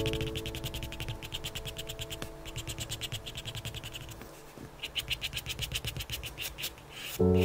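Faber-Castell Pitt Graphite Matt 10B pencil scratching across drawing paper in quick back-and-forth shading strokes, with a short pause about four seconds in.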